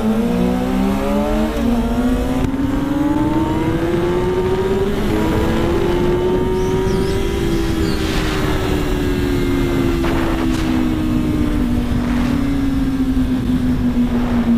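Sport motorcycle engine accelerating hard, its pitch climbing and dropping back at upshifts about a second and a half and about five seconds in. It then holds a steady cruise, easing off slowly, with wind rushing over the microphone.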